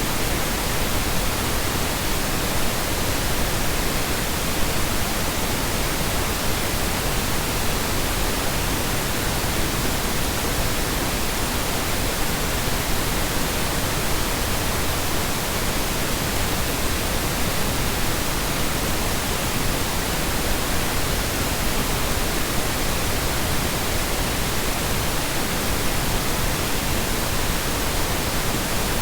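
Steady synthesized colour noise: an even, unbroken hiss spread across the whole range from low rumble to high hiss, with no changes, loops or other sounds.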